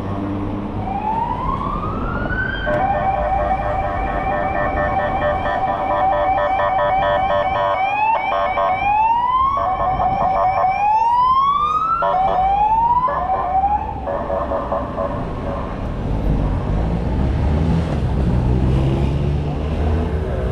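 Emergency vehicle siren: a rising wail, then a fast yelp, switching back to repeated rising wails and once more to the yelp before it stops about two-thirds of the way through. Low street traffic noise runs underneath.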